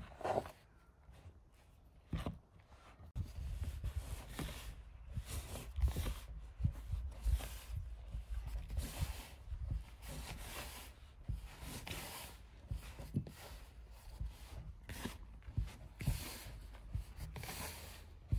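A fork scratching and stirring through flour in a plastic bowl, then, from about three seconds in, hands rubbing and pressing crumbly dough in the bowl in irregular soft swishes.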